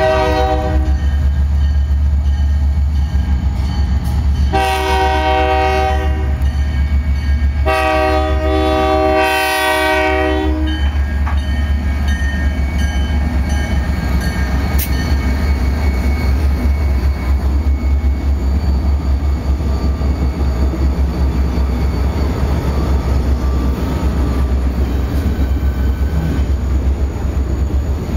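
Diesel freight locomotive horn sounds for a grade crossing: three blasts in the first eleven seconds, the last about three seconds long. The locomotives then rumble past, followed by freight cars rolling by with a steady clatter of wheels on rail.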